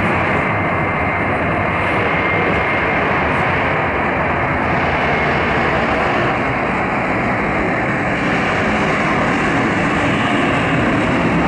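Airbus A321-231's two IAE V2500 turbofan engines running: a loud, steady rush of jet noise as the airliner rolls along the runway, with a faint high whine during the first three seconds.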